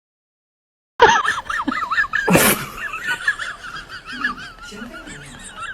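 High-pitched laughter that starts suddenly about a second in and slowly fades, with one short, loud burst of noise a little after it begins.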